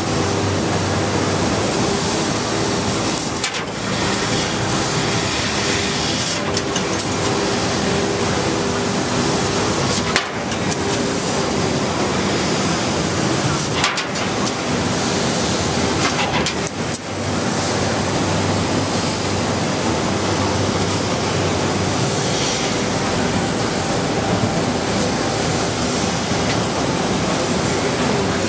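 750 W fiber laser cutter cutting 8 mm carbon steel plate: a steady, loud hiss from the cutting head with a steady hum underneath. The hiss briefly dips about four times.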